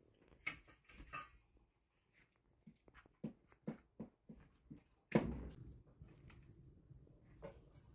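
Sticks and twigs knocking and snapping as they are fed into a fire in a clay pit oven: a run of light clicks, then a louder knock about five seconds in, after which a low steady rush continues.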